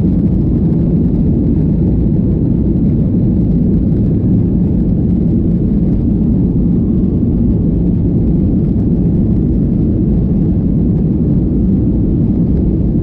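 Steady, loud low rumble of a Gol Boeing 737 airliner's jet engines and airflow, holding an even level without rising or falling.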